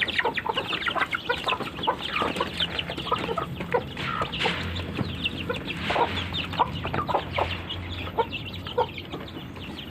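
A flock of chickens clucking at feeding time, many short calls overlapping without pause.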